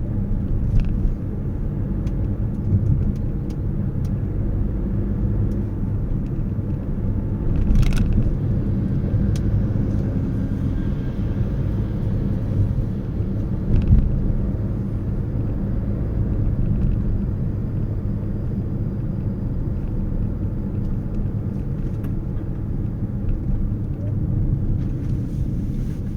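Steady low rumble of a car driving, with a few brief knocks about eight and fourteen seconds in.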